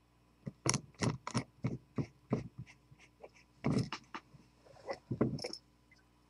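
A series of about a dozen irregular sharp clicks and knocks: fingers and thin bare wire leads being pressed and tapped against a metal vise.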